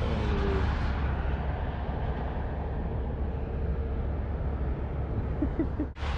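Blizzard wind blowing hard across the microphone: a steady, heavy rumble of wind noise that drops out suddenly near the end.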